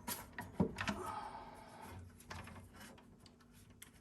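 Handling of plastic water-filter parts: a few light knocks and a clack, then a short rough scraping and rubbing of plastic on plastic.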